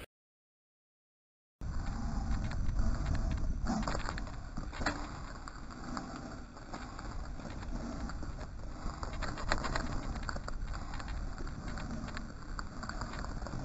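A mountain bike descending rocky singletrack: steady wind rumble on the camera microphone, with the tyres rolling over loose stones and the bike rattling in frequent clicks and knocks. The sound cuts in after about a second and a half of dead silence.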